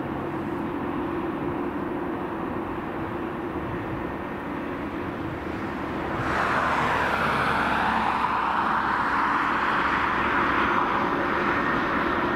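Airbus A300-605R freighter's twin turbofan engines running at taxi power, a steady jet hum with a low drone. About six seconds in it gets louder, with a broad hiss added that holds.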